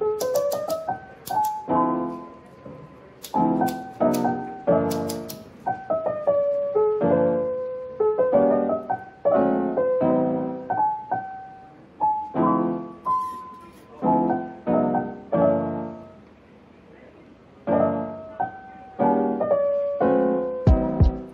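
Background piano music: soft chords struck about once a second, each left to fade away.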